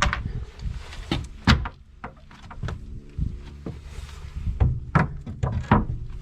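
Irregular knocks, clunks and scrapes of hand work on a sailboat's wooden sideboard and its fastenings, with a low rumble underneath.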